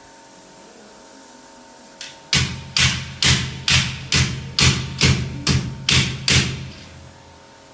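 About ten evenly spaced hammer blows, roughly two a second, starting about two seconds in and stopping near the end.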